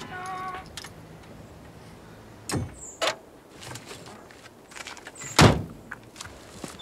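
Old car's door clunking open, a second knock just after, then the door slammed shut about three seconds later, the loudest sound.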